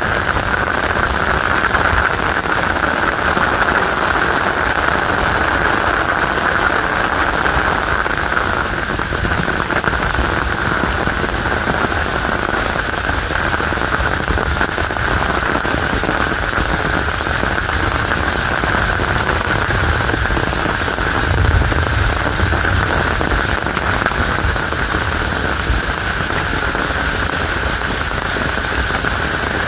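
Heavy rain falling on an umbrella: a dense, steady hiss of countless drop impacts. A brief low rumble comes about two-thirds of the way through.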